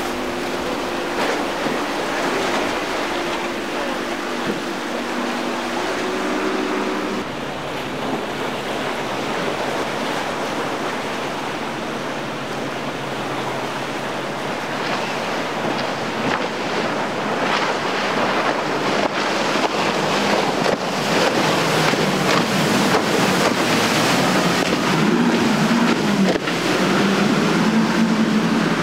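Outboard boat engines running at speed through rough inlet water, over the rush of waves and spray, with wind on the microphone. One engine drone fades out about seven seconds in, and another boat's engine grows louder toward the end.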